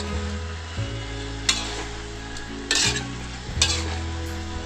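Metal spatula stirring and tossing vegetables and tofu in a metal wok, with a few scraping strokes about a second apart. The food is sizzling as it stir-fries over a gas flame.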